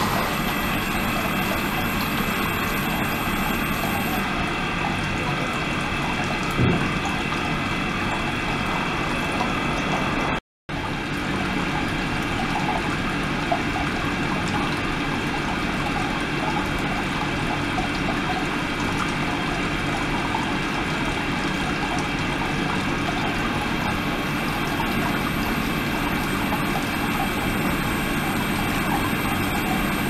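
Flow-through ultrasonic tank running: a steady churning hiss of circulating, agitated water, with the pump and the ultrasonic cavitation adding a few steady high-pitched tones. The sound cuts out for a moment about ten seconds in.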